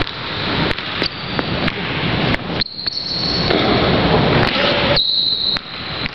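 Basketball bouncing on a hardwood gym floor in a string of sharp thuds, picked up close by a camera on the floor. Sneakers squeak on the hardwood twice, about two and a half seconds in and again near the end.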